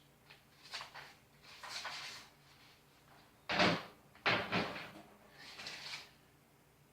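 Hand tools and a toolkit being rummaged through in search of a wrench: a series of short clatters and knocks, the two loudest about halfway through.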